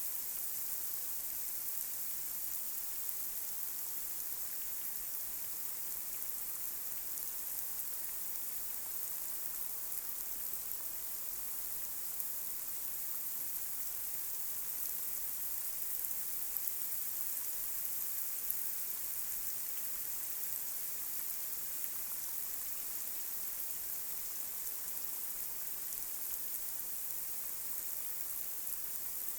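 Light rain falling on a street: a steady, even hiss with scattered faint drop ticks.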